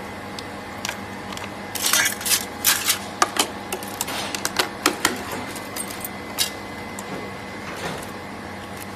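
Metal and plastic pry tools clicking and scraping against a phone screen's glass as it is worked loose from the LCD, the clicks bunched between about two and five seconds in, over a steady faint hum.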